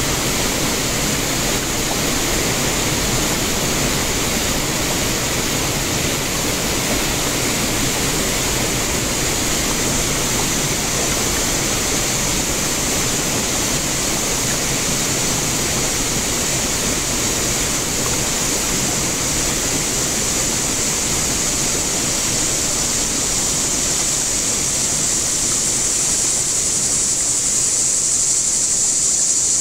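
Shallow river water rushing steadily over riffles around a kayak's bow. Near the end a high, steady insect drone from the riverbank grows louder.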